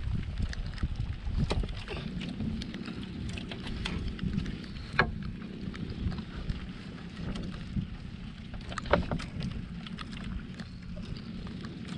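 Choppy water lapping against a small outrigger boat's hull, with wind on the microphone and a few sharp knocks, about a second and a half in, at five seconds and near nine seconds.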